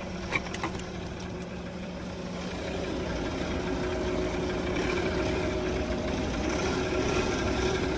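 Car engine idling steadily, growing a little louder from about halfway through.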